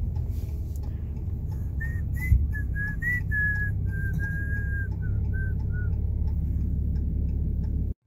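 A person whistling a short run of about a dozen notes over the steady low rumble of road noise inside a moving car, with one thump about two seconds in. The sound cuts off suddenly near the end.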